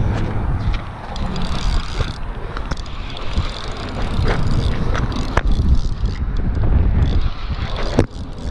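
Wind rumbling on the microphone, with scattered clicks and knocks from handling a fishing rod and spinning reel during a fight with a fish.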